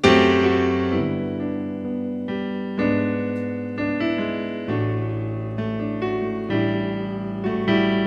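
Solo digital piano playing a slow song opening. A loud chord is struck at the start, then new chords and melody notes come in about once a second, each ringing and fading.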